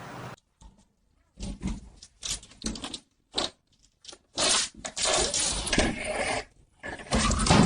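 Irregular clattering, knocks and scraping in short bursts, then longer stretches of rough, noisy rustling in the second half.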